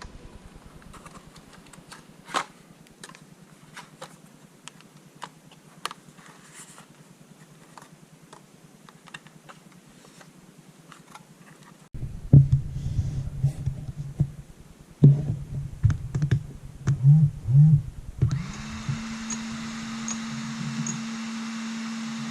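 Plastic clicks and snaps of a small consumer drone being handled and readied, with louder knocks and bumps in the middle; a steady hum with hiss comes in near the end.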